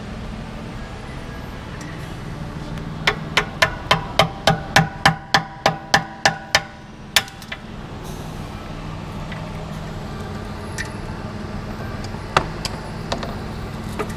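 Hammer driving a flathead screwdriver to break the rivet that holds the soft start of a Pullman Ermator S36 dust extractor. About three seconds in comes a quick run of about fourteen sharp metallic taps, about four a second, then one more a moment later.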